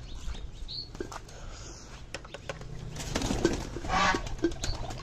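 Birds calling in a poultry pen, with scattered clicks and knocks as a plastic water dish is handled by the wire cage; the sound is loudest about three to four seconds in.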